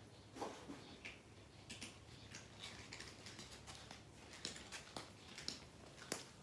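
Faint, irregular clicks and crunches of cats eating from a food bowl, several a second.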